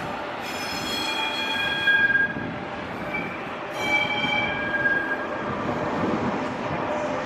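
A train moving slowly through the station, its wheels squealing in high, shifting tones twice over a steady rumble.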